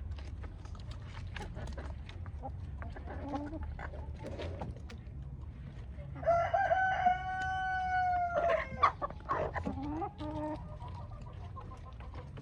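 A rooster crows once, a long call of about two and a half seconds starting about halfway through, among hens clucking. Many short sharp clicks run through it.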